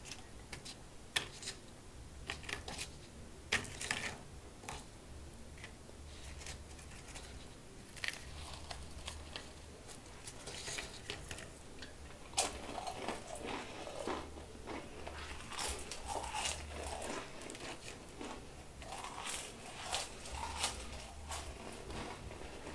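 Saltine crackers being bitten and chewed, a string of sharp crisp crunches. Rustling and knocking of a handheld camera being moved are mixed in from about halfway.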